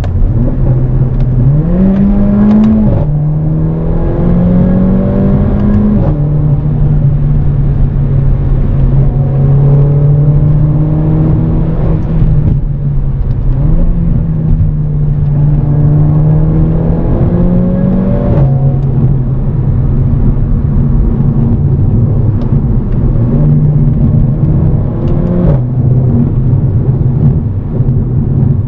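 Mercedes CLA 45 AMG's turbocharged 2.0-litre four-cylinder engine pulling hard while driving: its note climbs in pitch, then drops sharply at each upshift, five times, over a steady road rumble.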